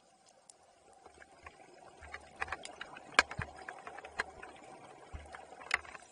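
Scattered underwater clicks and knocks over a low, uneven bubbling rumble, from a scuba diver right at the camera: regulator exhaust bubbles and the camera housing being bumped or handled. The sharpest knock comes about three seconds in.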